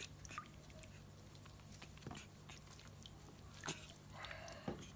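Quiet handling noises: scattered soft clicks and taps, with two sharper clicks near the end, over a faint steady hum.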